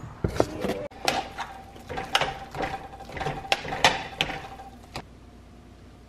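A door being opened with a few clicks. Then a metal utensil clanks sharply and repeatedly against an enamel pot of mashed potatoes over a steady hum, and both stop about five seconds in.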